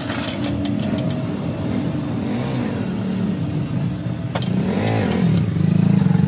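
Motor vehicle engines running, one revving up and back down about five seconds in, growing louder near the end. Light metal clinks of tools being handled come at the start, with a single sharp click about four seconds in.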